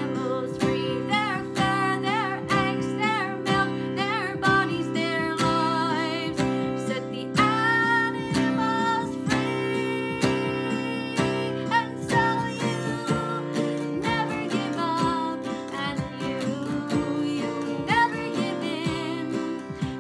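A woman singing with a wavering vibrato over a strummed acoustic guitar.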